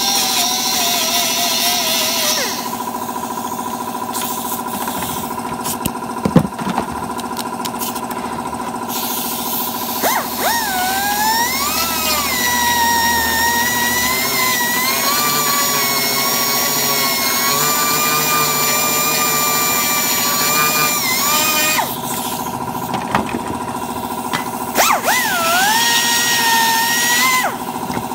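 Electric grinder whining as it grinds down a plastic weld on a motorcycle side cover; its pitch rises and dips as it is pressed into the plastic and eased off. It runs in spells: briefly at the start, a long stretch from about ten seconds in to about twenty-two, and again near the end, with a few sharp clicks between and a steady hum underneath.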